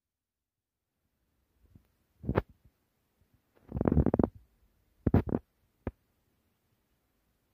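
Noise on the microphone: a few short, irregular bursts of low rumbling, the longest about four seconds in, and one sharp click near the end, after a second and a half of dead silence.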